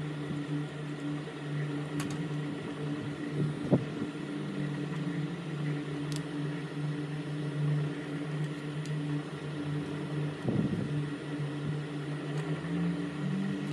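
A steady low machine hum, like a small fan or motor, with a few faint clicks and taps scattered through it.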